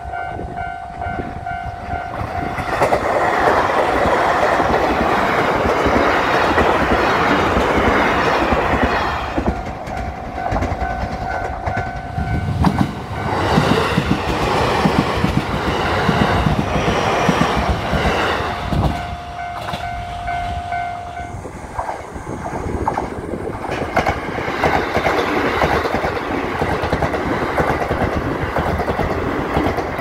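Japanese level-crossing warning bell ringing as electric trains pass in turn. The rumble and wheel clatter of the passing trains comes in three long loud spells and drowns the bell while each train goes by.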